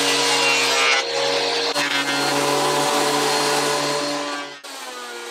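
Scheppach HMS 850 benchtop jointer planer with its 1250 W motor running, a pine board being fed over the spinning cutterhead: a steady motor whine under dense cutting noise. Near the end the cutting noise stops and the machine runs on more quietly.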